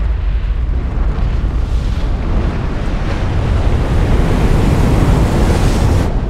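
Wind and sea rushing past a ferry's deck, with a heavy deep rumble, building in strength; the higher hiss cuts off suddenly about six seconds in.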